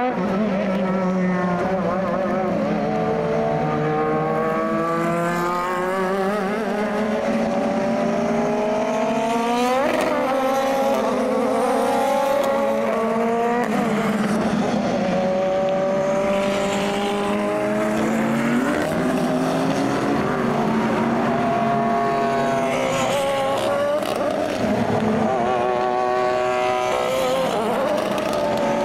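Super GT race cars lapping a wet track, several engines heard at once, their pitch rising and falling through throttle and gear changes as they pass. A sharp rise and drop in engine pitch comes about ten seconds in.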